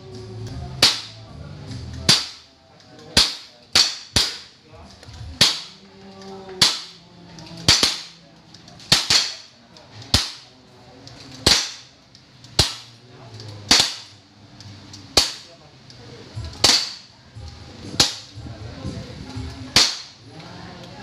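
6 mm airsoft pistols firing single shots, about twenty sharp cracks spread at roughly one a second, some in quick pairs.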